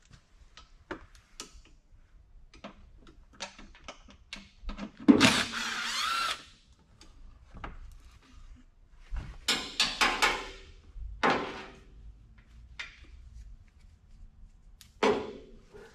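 Cordless power tool on a long extension spinning out the underbody panel's fasteners in short runs, the longest about a second, with clicks and rattles of the extension and fasteners in between.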